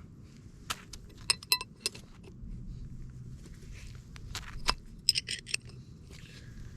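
Small metal parts or hand tools being handled, giving scattered sharp clicks and short ringing metallic clinks. The clinks come in a cluster about a second in and another near five seconds in, over a steady low rumble.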